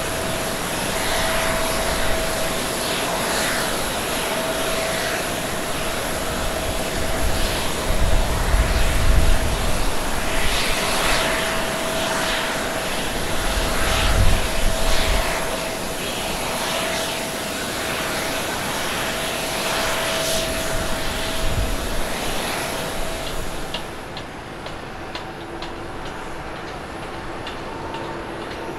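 Twin-engine Boeing 787 airliner at takeoff thrust as it lifts off and climbs away: a loud, dense jet noise with a steady whine, and deep rumbling that swells about a third of the way in and again near the middle. About three-quarters of the way through, it cuts abruptly to a quieter, steadier engine whine from an Airbus A350-900's Rolls-Royce Trent XWB turbofans as it rolls on the runway.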